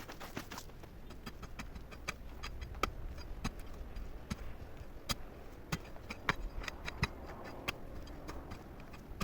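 A rapid, irregular series of sharp clicks and small knocks, a few a second, over a low steady rumble.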